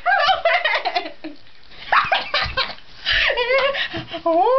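People laughing hard in bouts of high, rapid giggling, with a short lull between about one and two seconds in.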